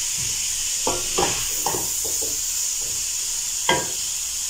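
Diced capsicum and onion sizzling in a pot while a spoon stirs them. Several scrapes and knocks of the spoon against the pot come in the first half, with a louder knock near the end.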